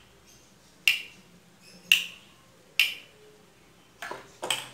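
A wooden bed switch clicked three times, about once a second, then a couple of quick knocks near the end as the switch and its wires are set down.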